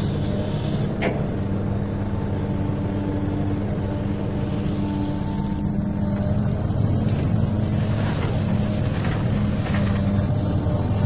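XCMG excavator's diesel engine running steadily, with a short knock about a second in.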